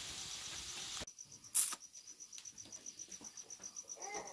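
A cricket chirping steadily, a high pulsing trill at about five pulses a second. In the first second a hiss stops abruptly, and there is a brief loud rustle about one and a half seconds in.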